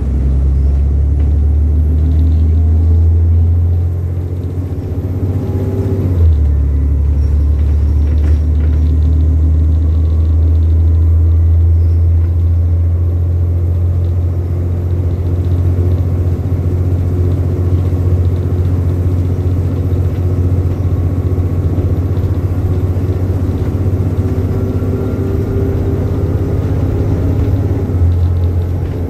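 Diesel bus engine working hard under load, its pitch rising as it pulls, then dropping sharply at a gear change about six seconds in before climbing again.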